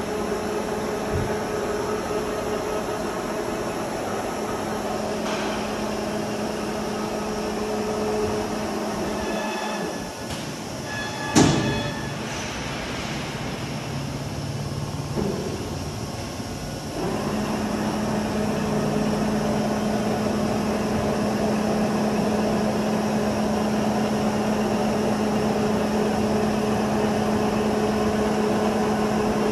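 Monarch VLN-14 CNC vertical turning center running: a steady mechanical hum with a constant tone. The hum drops away around ten seconds in, a sharp clack follows about a second later, and the hum comes back a little louder from about seventeen seconds.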